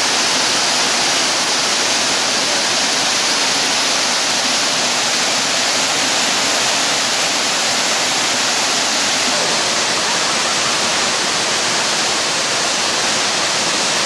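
Dzhur-Dzhur waterfall: falling water making a loud, steady rush.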